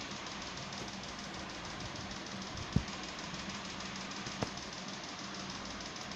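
Steady background hiss with a faint low hum, broken by one sharp thump about three seconds in and a fainter click about a second and a half later.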